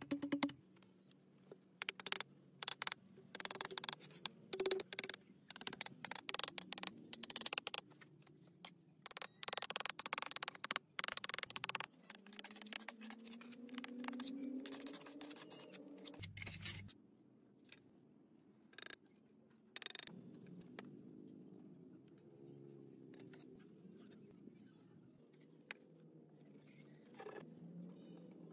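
Mason's trowel scraping and tapping wet cement mortar around bricks and a metal pipe, making a run of short scrapes and clicks. A fainter pitched sound rises partway through.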